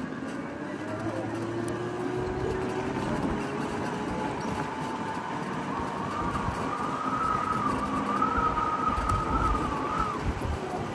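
Electric motorcycle riding in city traffic: its motor whine rises slowly in pitch over a steady bed of wind and road noise. A higher, wavering whine joins in the second half and drops away near the end.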